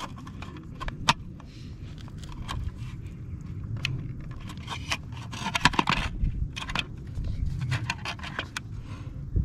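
Hands working a plastic Flume water-meter sensor and its strap into place against a water meter: scraping and rubbing with scattered sharp clicks and rattles, busiest about six seconds in.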